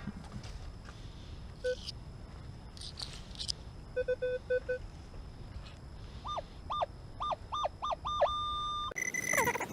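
Minelab Equinox 600 metal detector giving target tones as the coil passes over buried metal: a quick run of low beeps, then a string of rising chirps that ends in a held tone. Near the end a louder burst of gliding, chirping sounds comes in.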